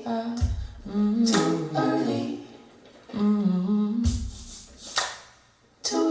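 A cappella vocal music: layered humming voices in close harmony, with a deep bass hit twice, about half a second in and again about four seconds in, played back over hi-fi loudspeakers.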